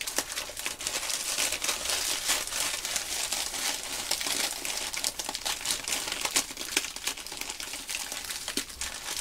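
Thin plastic snack packet crinkling continuously with many small crackles as a packet of byeolsatang (military star candy) is handled right at the microphone.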